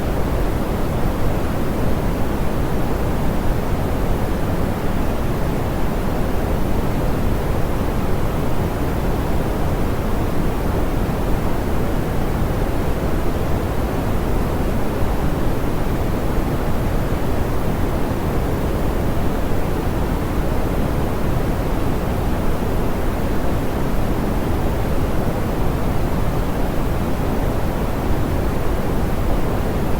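Steady, smoothed pink noise: an even hiss weighted toward the low end, rolled off in the highs, unchanging throughout.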